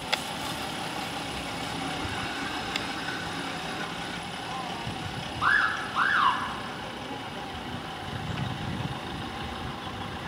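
Mercedes Sprinter ambulance driving off with its engine running. About five and a half seconds in its siren gives two short whoops, each rising and falling, louder than anything else.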